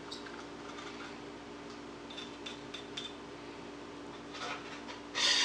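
Kitchen food-prep handling: a few light clinks of metal utensils against a plate about two seconds in, and a short, louder rustle near the end, over a steady low hum.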